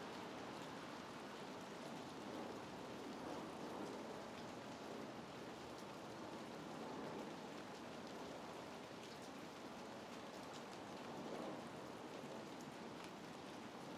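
Steady rain falling, with a few scattered drops ticking close by.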